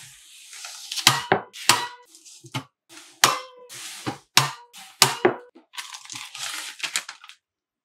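Several sharp knocks and clacks as a loaf of soap and a plastic cutting guide are handled and set down on a table, with paper crinkling in between.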